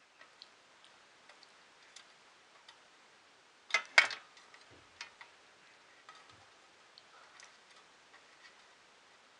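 Small clicks and taps at an irregular pace from handling a screw and parts against a 3D printer's metal frame during assembly, with two louder clicks close together about four seconds in.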